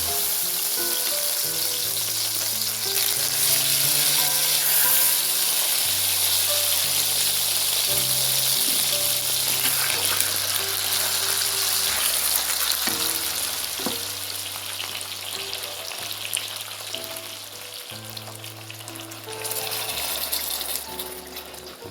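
Food sizzling in hot fat in a frying pan, over background music with stepping bass notes. The sizzle eases off over the last few seconds.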